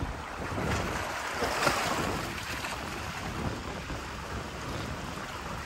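Wind buffeting the microphone over the wash of sea waves against jetty rocks, with a short louder rush about a second and a half in.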